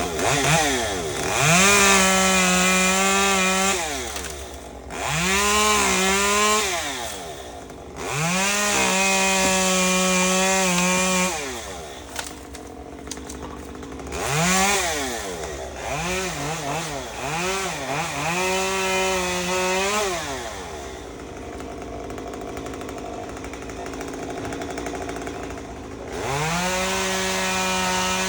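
Two-stroke chainsaw revved up to a high, steady full-throttle pitch for a few seconds at a time and let fall back, about five times, with a quieter stretch in the second half before it revs up again near the end.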